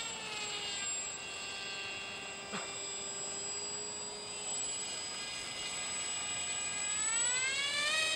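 Radio-controlled Polaris plane's motor and propeller whining, a high-pitched tone with many overtones. The pitch settles and holds steady, then rises and falls again near the end as the plane flies past.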